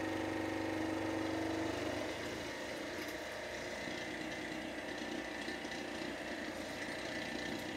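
Countertop Waterpik water flosser's pump running steadily, its sound changing about two seconds in as the water tank empties and the pressure changes.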